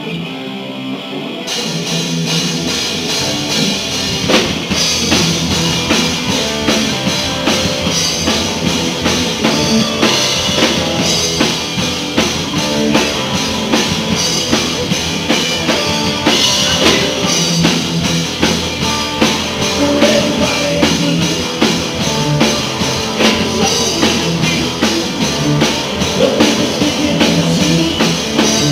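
Live blues-rock band playing: drum kit keeping a steady beat under electric guitar, bass and an amplified harmonica cupped to a vocal mic. The full band comes in about a second and a half in.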